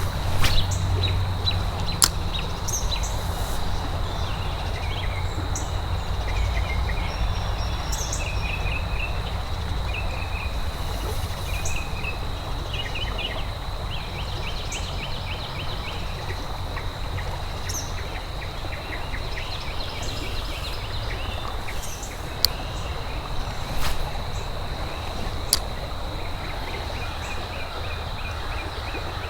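Outdoor creek ambience: birds chirping in short repeated phrases over a steady low rumble and a constant thin high-pitched tone. A few sharp clicks stand out, one about two seconds in and a cluster after twenty seconds.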